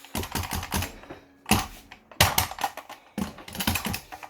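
Four quick bursts of rapid clicking and rattling as a pneumatic air gun is worked during cleaning.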